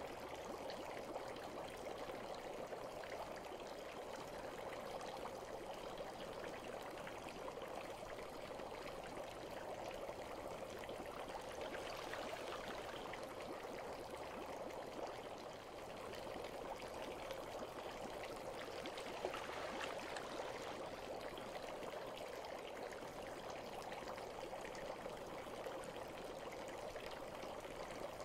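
Bathwater running and trickling steadily, an even wash of water noise with no breaks.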